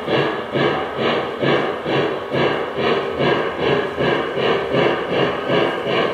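O scale model Santa Fe Northern 4-8-4 steam locomotive's onboard sound system chuffing at a steady rhythm, about two chuffs a second, as it runs.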